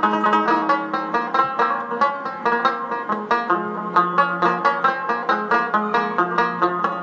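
Background music: an upbeat plucked-string instrumental with a quick, steady run of picked notes.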